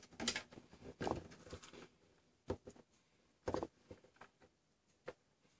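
Faint, scattered clicks and short scrapes of a ball-end hex driver working small socket head cap screws into the stabilizer mount: a cluster of small rasping sounds at first, then single sharp ticks a second or so apart.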